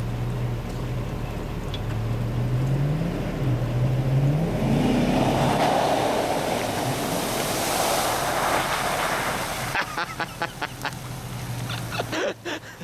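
Hummer 4x4's engine revving up in three rising pulls as it accelerates, then a long rush of water and mud spray as it drives through a puddle.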